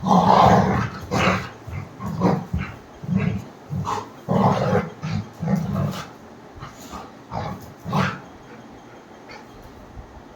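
Rottweiler growling and giving short barks in play, in a run of bursts through the first six seconds, with a last one about eight seconds in.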